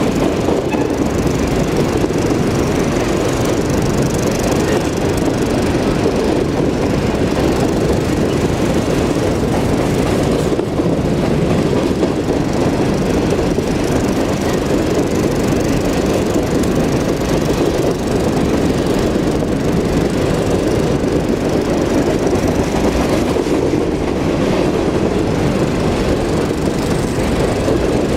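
Empty coal hopper cars of a freight train rolling past, a steady rumble of steel wheels on rail.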